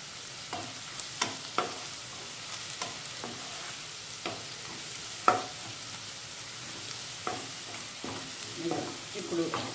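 Sliced onions and green chillies sizzling in oil in a nonstick pan, stirred with a wooden spatula that knocks against the pan about once a second, the loudest knock about five seconds in. The onions are browning, changing colour in the oil.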